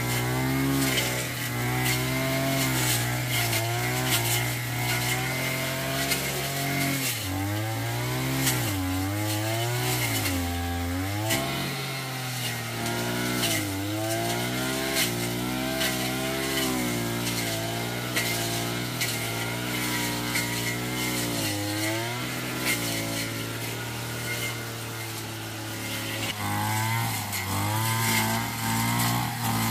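Small petrol engine of a handheld cutting tool running hard, its note dropping and recovering again and again as it takes load.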